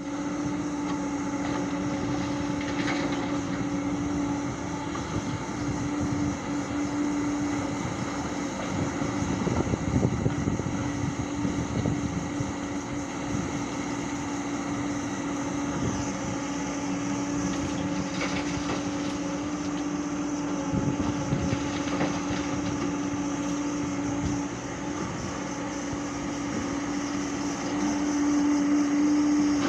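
A Hyundai 140 excavator running, its engine and hydraulics giving a steady drone, with scattered knocks in the middle and a louder stretch near the end.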